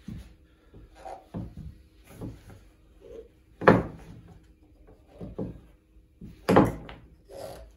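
Wooden bagpipe parts knocking and clunking on a tabletop while the bag is handled and the blowstick is fitted into its stock, with two louder knocks about a third of the way in and near the end.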